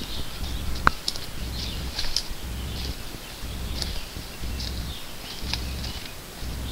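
Footsteps through forest undergrowth, leaves and brush rustling and crackling irregularly as a hiker pushes along a ridge, with a low rumble of camera handling. A sharp click stands out about a second in.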